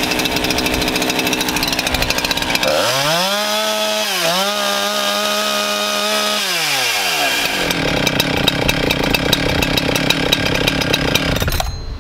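Cutter's Edge 2171 chainsaw's two-stroke engine, just warm-started and running at high idle, then revved to full throttle about three seconds in and held for a few seconds with a brief dip, before dropping back. It runs on steadily at the lower speed and stops abruptly near the end. These full-throttle strokes are the warm-up step after starting.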